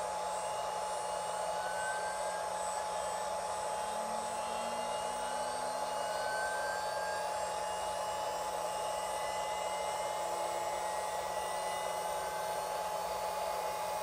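Next Wave Automation water-cooled spindle winding up in speed from about 8,000 toward 24,000 rpm: a steady hum and hiss with a constant tone, and faint tones slowly rising in pitch as it speeds up.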